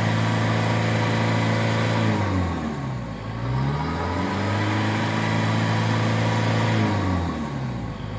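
Isuzu D-Max four-cylinder turbodiesel revved in place: held at high revs, falling back to idle about three seconds in, revving up again and holding, then dropping away near the end. The engine is being free-revved to check the exhaust for black smoke.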